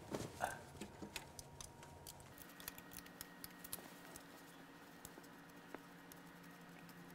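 Faint, scattered small metallic clicks and taps of a wrench and gloved hands working on a diesel cylinder head as a glow plug is being removed. A faint steady hum comes in about two seconds in.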